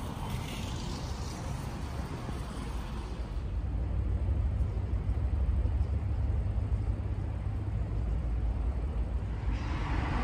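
Steady low rumble of road traffic, with vehicles running past; it grows louder about three seconds in.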